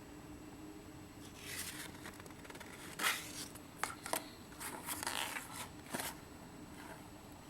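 Keys of a mechanical keyboard with Cherry MX Brown switches being pressed in irregular bursts: a few separate clacks and short quick runs of keystrokes, with pauses between them.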